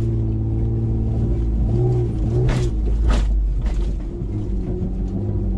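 Ford Explorer's engine and Borla cat-back exhaust running at low speed through deep sand ruts, heard from inside the cabin, the engine note rising and falling with the throttle. About halfway through come a few sharp knocks as the vehicle goes over the bumps.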